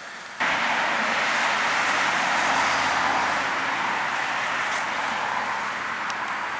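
Road traffic: cars driving past on the road, a steady hiss of tyre and engine noise that starts abruptly about half a second in and slowly eases off.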